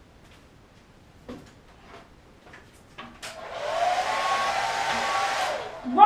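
A handheld hair dryer is switched on about three seconds in. Its motor whine and rushing air come up quickly, run steadily for a couple of seconds, then stop and wind down as it is switched off.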